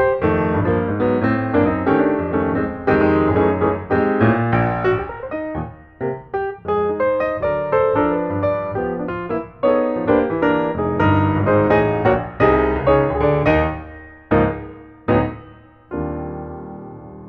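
Background piano music, a run of quick notes that slows to a few separate struck chords near the end.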